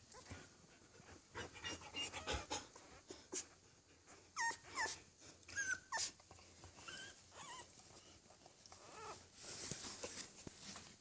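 Twelve-day-old puppy squeaking and whimpering, a cluster of short high squeaks about halfway through, with scratchy rustling throughout as it moves on its bedding during its first attempts at walking.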